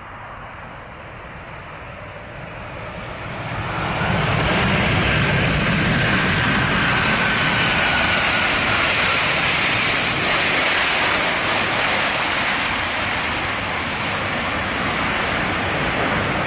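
Jet engines of a Boeing 747 freighter on its landing roll-out: a loud, steady rush of jet noise that swells about four seconds in and then holds, with a faint whine falling slowly in pitch.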